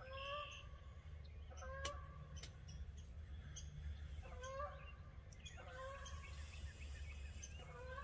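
Wild turkey calling: about five short pitched calls spaced a second or two apart, over a steady low rumble. There is a single sharp click about two seconds in.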